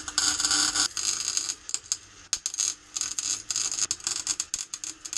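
Electric arc welder crackling, at first in one run of about a second, then in many short bursts that stop and restart: tack and stitch welding a handle bracket onto a crucible.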